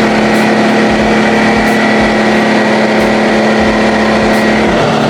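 DeWalt 6-gallon air compressor running, a loud steady motor-and-pump hum that drops slightly in pitch near the end.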